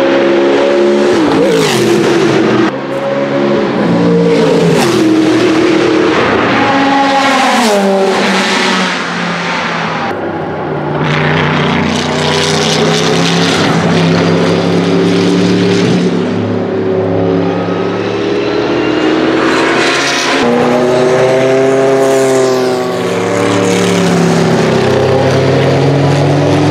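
Sauber Mercedes C8's twin-turbo 5.0-litre Mercedes-Benz M117 V8 racing engine at speed, driving past several times. The engine note drops in pitch as the car goes by, holds steadier for a stretch, then rises again as it accelerates.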